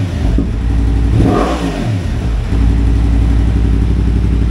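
2023 Yamaha MT-10's crossplane inline-four, running through a Leo Vince decat mid-pipe and the stock muffler, revved once with a quick rise and fall in pitch, then settling into a steady idle a little past halfway.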